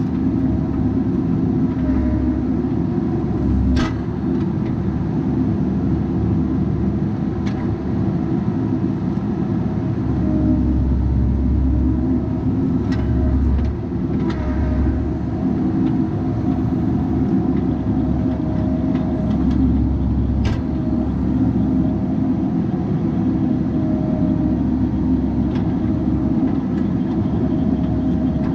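Bobcat 337G mini excavator's diesel engine running steadily, with a few sharp metallic clanks, the clearest about four seconds in and again around twenty seconds.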